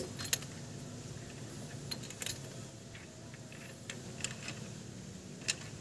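Scattered light metallic clicks and taps as a T-handle socket wrench is worked on a nut at the base of a carburetor, the irregular spacing following the turns of the handle.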